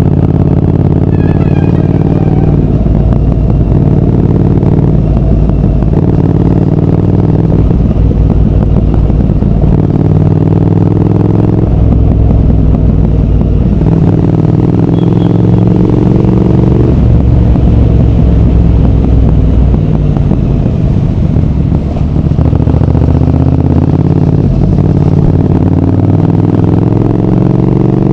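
Triumph Speed Twin 1200's parallel-twin engine and exhaust under way. The engine note climbs and then drops or breaks every few seconds as the rider works the throttle and gears.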